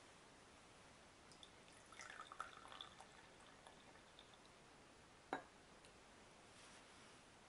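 Tea poured from a ceramic teapot into a ceramic cup: a quiet, short trickle and splash about a second and a half in, lasting about two seconds. A few seconds later comes a single sharp knock, the loudest sound.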